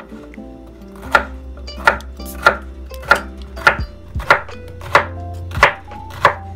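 Kitchen knife slicing bitter melon on a wooden cutting board: a steady run of about nine sharp chops, roughly one every 0.6 seconds, with background music underneath.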